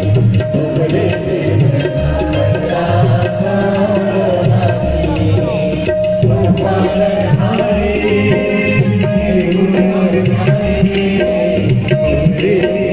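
Live amplified band music: keyboard and guitars over a steady drum beat, played through a sound system.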